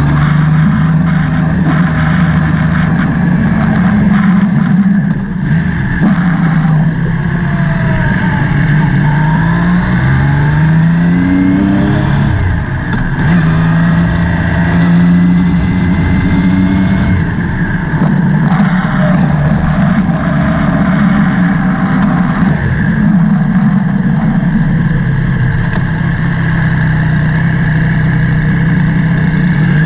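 Motorcycle engine running under way, rising in pitch twice around 8 to 12 seconds in as it accelerates through the gears, then holding a steady pitch; wind noise on the microphone throughout.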